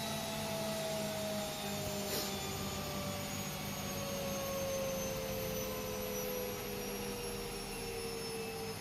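Washing machine running, its motor whine falling slowly and steadily in pitch over a steady whir, as the drum spin slows down. A brief tick about two seconds in.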